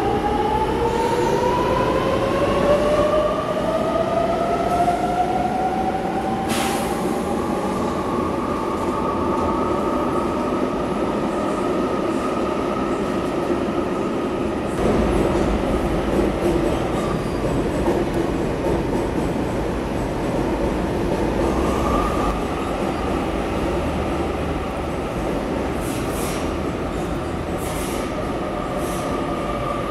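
Sydney Trains double-deck electric train running past the platform, its traction motors whining in a pitch that rises over the first six seconds as it gathers speed, then holds steady. The rumble of wheels on rail runs beneath, growing heavier about halfway through, and a fresh steady whine starts a little after twenty seconds.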